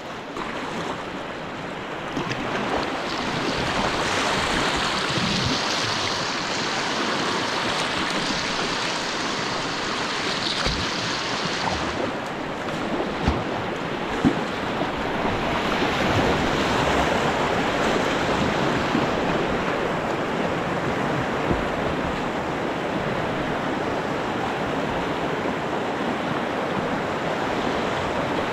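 Rushing white water of a shallow river rapid, heard close from a kayak, a steady churning hiss with a couple of brief knocks about halfway through.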